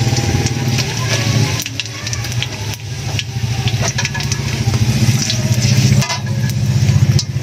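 Boneless danggit frying in shallow hot oil in a metal wok: a steady sizzling hiss, with a metal slotted spatula clicking and scraping against the pan as the pieces are turned and lifted out. A loud, steady low mechanical hum runs underneath, louder than the frying.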